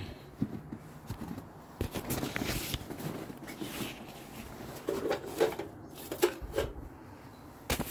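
Footsteps and handling noise: paper rustling and a few light clicks and knocks as a flyer is slipped into a black metal wall-mounted mailbox, the knocks clustering in the second half.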